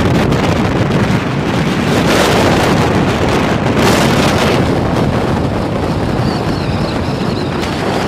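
Wind buffeting the microphone, loud and continuous.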